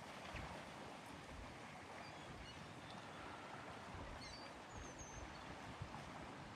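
Faint lake ambience: a steady hiss with low rumbling and a few faint, high bird chirps about four to five seconds in.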